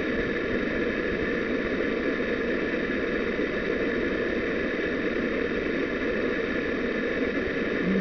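Steady mechanical hum and hiss, unchanging throughout, like a motor or fan running.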